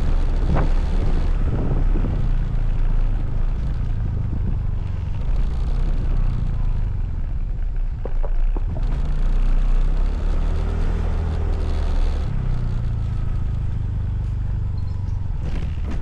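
Motorcycle engine running at low road speed, with wind noise on the microphone; the engine's pitch steps up and down a few times with the throttle.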